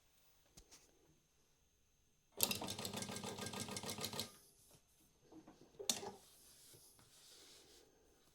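Prosew PS-1903SX industrial walking foot sewing machine running a short burst of rapid, evenly paced stitching for about two seconds as it sews out a programmed segment. A few fainter mechanical clicks follow, with a sharper click about six seconds in.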